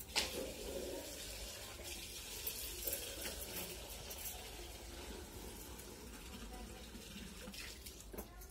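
A hand squelching and scooping through pakhala, cooked rice soaked in water, in a steel bowl: wet, watery splashing with a sharp click just after the start.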